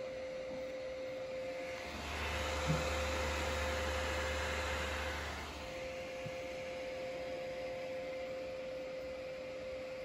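Home-built PC's cooling fan running flat out with a steady whine while a 100% CPU stress test holds the Core 2 Quad at full load. About two seconds in, a louder rushing noise with a deep hum swells up, then stops about five and a half seconds in.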